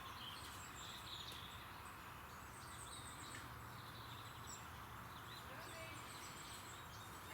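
Faint birds chirping intermittently over steady low outdoor background noise.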